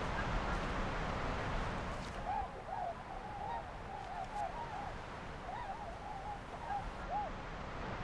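A gull calling in a run of short notes that rise and fall, beginning about two seconds in and stopping shortly before the end, over a steady outdoor hiss.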